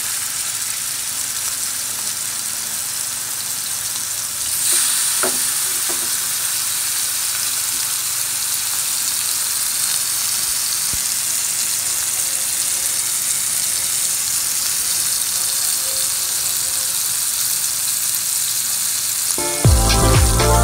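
Yogurt-and-spice-marinated chicken pieces frying in hot oil in a grill pan, a steady sizzle that gets louder about four and a half seconds in. Background music comes in at the very end.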